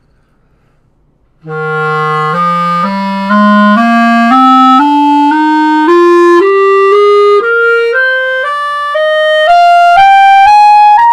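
Serio Claro clarinet, with a composite upper joint and a grenadilla wood lower joint, fitted with red, brown and orange color rings for added resonance, playing a slow ascending scale from the low register up through the upper register. It comes in about a second and a half in, one sustained note about every half second.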